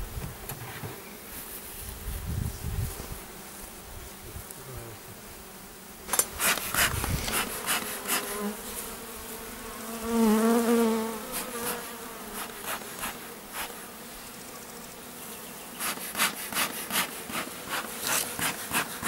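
Honeybees buzzing around their hives, with one bee passing close about ten seconds in, its wavering buzz loudest then. Clusters of short handling rustles and knocks come a few seconds in and again near the end.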